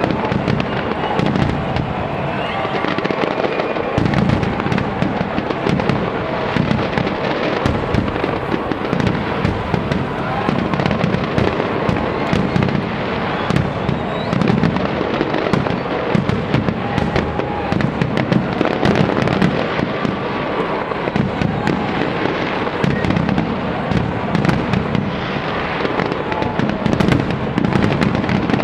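Fireworks display going off in a dense, continuous barrage of bangs and crackles with no let-up.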